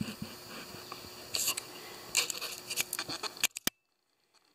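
Light clicks and rustling handling noise, then a sudden drop to near silence about three and a half seconds in.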